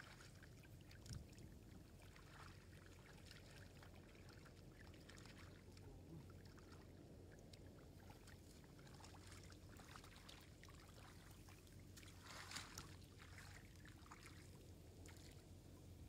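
Faint splashing and trickling of shallow muddy water, with a slightly louder burst of splashing about twelve seconds in.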